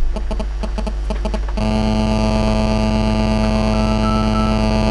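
Mobile phone radio-frequency interference picked up by an audio amplifier and heard from it, over a low mains hum. It starts as a quick pulsing of short clicks, about five a second, then turns into a steady, louder buzz about a second and a half in as the call comes through. This is the 'kadakada' radio-frequency noise that amplifiers make during phone calls nearby.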